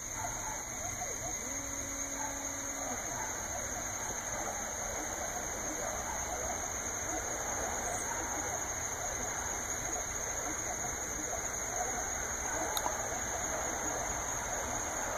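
Diode laser engraver running a burn: a steady fan hiss with a steady high whine, a brief low motor hum about two seconds in, and a single sharp click near the end.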